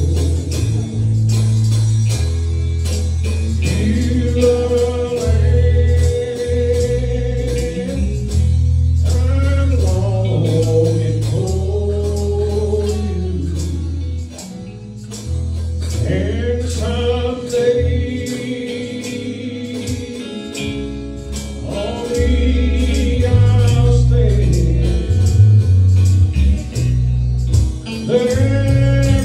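Gospel song sung by a male lead voice with backing singers, over strong bass and a steady beat.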